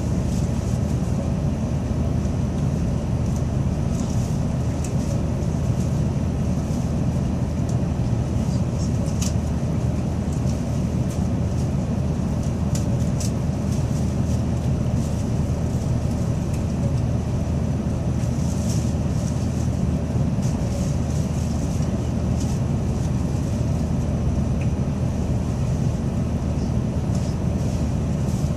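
Shinkansen train running at speed, heard inside the passenger cabin as a steady low rumble, with a faint steady high whine and scattered faint ticks.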